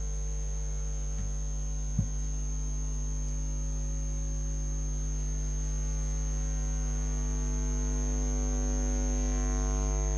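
Steady electrical mains hum on the audio track, with a thin high whine above it and a single click about two seconds in.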